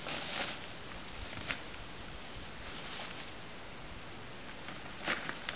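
Soft rustling with a few sharp crackles: a coil of plastic maple sap tubing being rolled out over dry leaves. One crackle comes about a second and a half in, and more come near the end.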